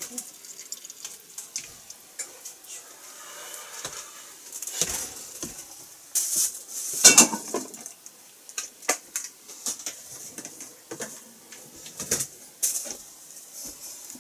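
Kitchen clatter as pots, dishes and utensils are handled: scattered clinks and knocks, with a louder burst of rattling about six to seven seconds in.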